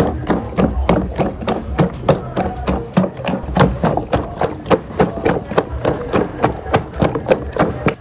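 Background music with a fast, even percussive beat of about four to five strikes a second over sustained tones.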